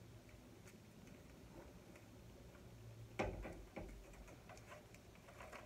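Faint crinkling and ticking of aluminum foil being rolled tightly around a broom handle, with a louder knock about three seconds in followed by a few clicks.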